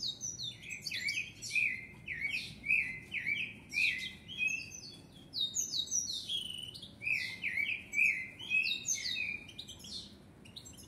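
Caged common blackbird singing a fast run of short chirping and twittering notes. The song comes in two long phrases, with a short lull about halfway through.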